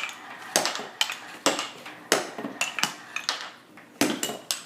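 Marbles clicking and clattering as they run down a marble run built of wooden Jenga and Keva blocks. About a dozen sharp, irregular clicks, with the marbles striking the blocks and each other.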